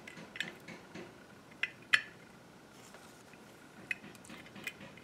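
Light metallic clicks and clinks from a small hand tool working against the parts of a Walbro WF-7 carburetor: a few separate sharp ticks spread out, the loudest about two seconds in.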